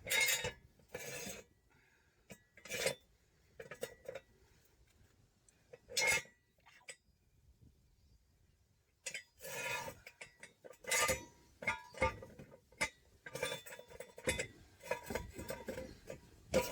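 Metal tools and parts being handled, with scattered sharp clinks and clanks and short clattering runs separated by quiet gaps.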